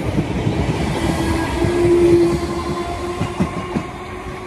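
Merseyrail electric train moving away along the platform: a low rumble of wheels on rails with a steady hum that swells about two seconds in. It then fades as the train recedes, with a few clacks over the rail joints near the end.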